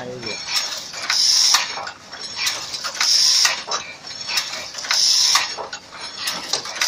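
Wire mesh making machine running: metal clicking and clattering throughout, with a high hiss that swells about every two seconds as the machine cycles.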